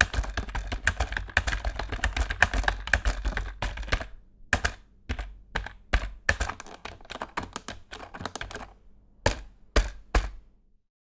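Fast typing on an inexpensive Microsoft computer keyboard: a dense, rapid clatter of keystrokes for about four seconds, thinning to scattered presses, then a few separate louder key presses before it stops shortly before the end.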